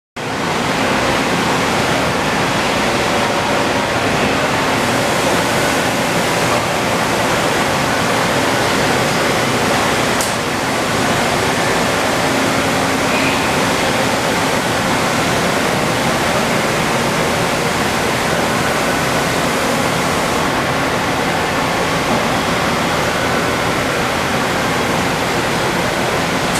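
Steady, loud machine-shop background noise: an even hiss with faint steady hums underneath, typical of a working CNC machining plant with ventilation and machines running.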